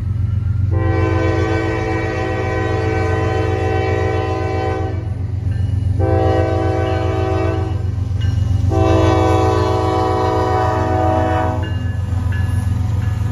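CSX diesel freight locomotive's multi-note air horn sounding a long blast, a short one, then another long blast for a grade crossing. A steady low rumble from the approaching train runs underneath.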